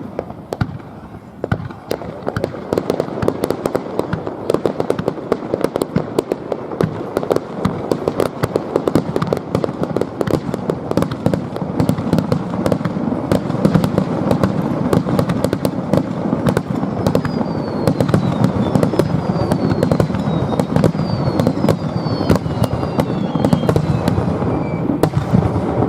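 Fireworks display: a dense, continuous barrage of shell bursts and crackling, with several falling whistles about two-thirds of the way through.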